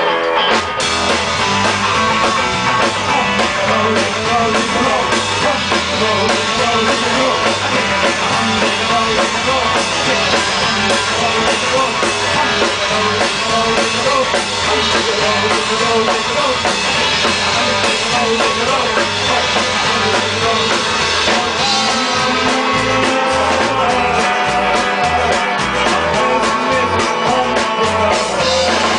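Gypsy punk band playing live: electric guitar and drum kit with singing, loud and steady.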